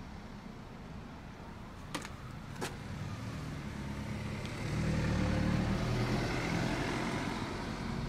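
A motor vehicle's low rumble that swells about five seconds in and then eases a little, with two light clicks about two seconds in.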